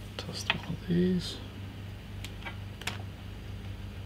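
Small metal screws clicking and ticking as they are handled and tried against a 2.5-inch hard drive's mounting hole, a few sharp ticks in the second half, over a steady low electrical hum.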